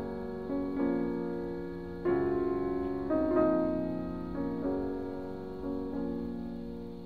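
Background music: a slow piano piece, chords struck about once a second and each left to fade.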